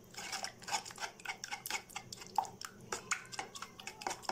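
A metal spoon stirring thick batter in a metal bowl, clicking against the bowl's side about five times a second.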